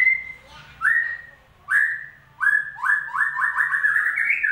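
White-rumped shama giving clear upslurred whistles: three notes about a second apart, then a quickening run of notes that climbs steadily in pitch. The song is played as a lure to set a silent shama singing.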